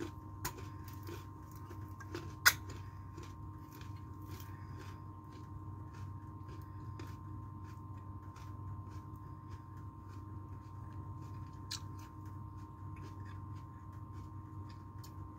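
Handheld can opener cranking around a steel soup can, a run of small metal clicks with one sharper click about two and a half seconds in, over a low steady hum.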